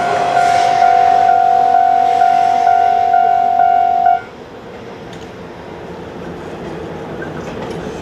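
Japanese level-crossing warning bell ringing, a steady electronic ding repeated about twice a second, which cuts off abruptly about four seconds in as the crossing clears after the train.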